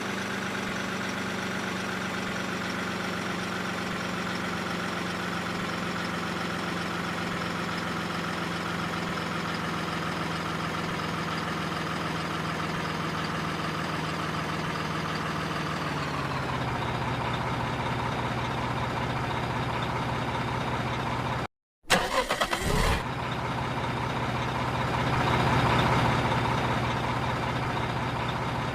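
RC truck's engine sound idling steadily, its pitch sinking slowly and stepping lower a little over halfway through. About three quarters in it cuts out for a moment, comes back with a short rough burst, then swells briefly louder.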